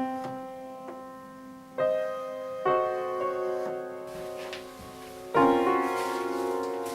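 Piano music: sustained chords struck one after another, each ringing and fading, growing fuller and louder, with the loudest chord about five seconds in.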